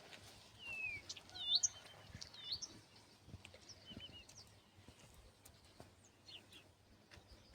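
Small birds chirping outdoors: a handful of short, quick-curving high calls in the first few seconds and a couple more about four seconds in, over a faint background hiss.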